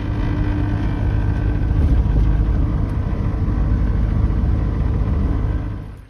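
Mercedes-Benz Vario truck's diesel engine and road noise heard inside the cab while driving: a loud, steady low rumble that drops away just before the end.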